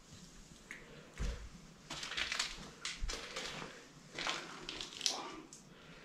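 Slow footsteps crunching on debris and rubble across a broken floor: a handful of separate, irregular crunches, two of them with a low thud.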